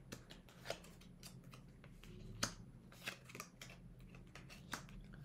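Oracle cards being handled and laid down on a table: faint, irregular light ticks and soft taps of card on card, the loudest about two and a half seconds in.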